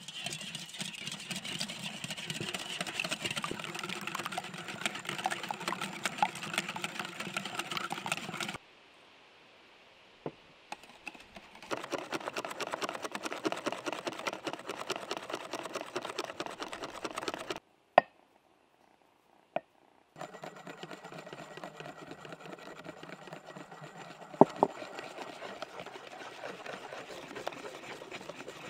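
Wire whisk beating batter in a stainless steel mixing bowl: a fast run of clinking and swishing as the wires strike the metal. It comes in three long spells with short pauses between, broken by a few single sharp clinks against the bowl.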